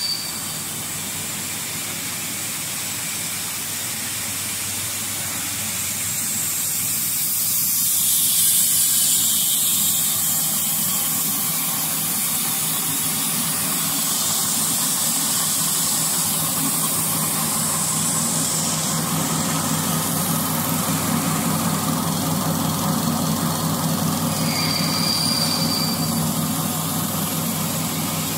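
Plastic lollipop-stick extrusion line running: a steady mechanical hum with hiss, and a brief high whistling tone near the end.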